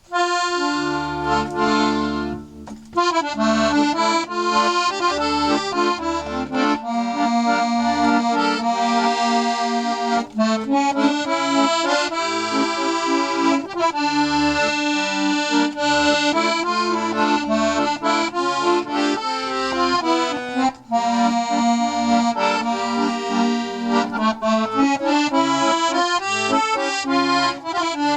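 A freshly restored 72-bass Stefanelli accordion, its reeds cleaned, waxed and tuned, playing a French tune. A melody runs over a regular oom-pah bass and chord accompaniment, with short breaks about two and a half seconds in and again around twenty seconds.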